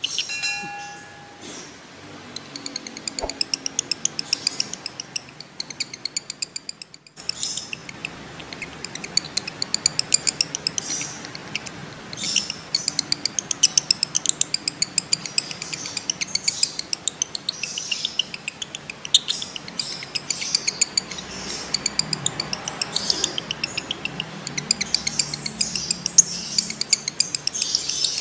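Male lovebird in breeding condition chattering in long, fast, high-pitched ticking trills, the 'ngekek' song. The chatter is quieter for a few seconds, then picks up sharply about seven seconds in and keeps going.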